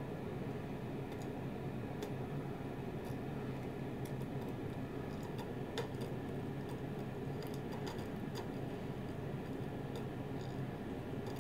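Hand-soldering surface-mount chips: a few faint, scattered ticks as the soldering iron tip and solder wire touch the circuit board, over a steady low hum.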